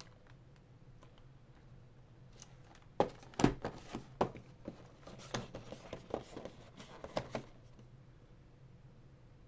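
Cardboard model-kit box and its contents being handled: a run of sharp knocks, clicks and rustles starting about three seconds in and stopping about two seconds before the end.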